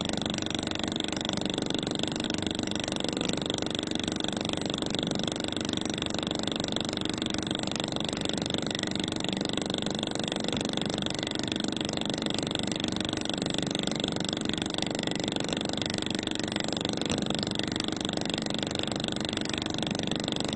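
A handheld tooling repair welder buzzing as its copper electrode fuses a thin filler strip onto a steel mold surface, a steady, rapid buzz with no pauses.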